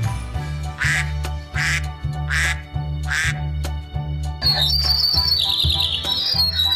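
A duck quacking four times, evenly spaced. About two-thirds of the way in, a small songbird takes over with a rapid run of high chirps. Background music with a steady low beat plays throughout.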